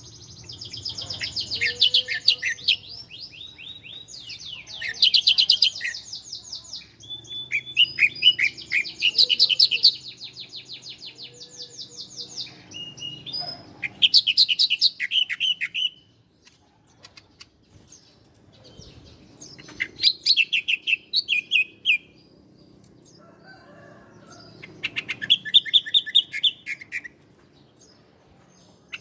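Ciblek (bar-winged prinia) singing: bursts of rapid, high-pitched chattering trills, each a second or two long, with short pauses between phrases.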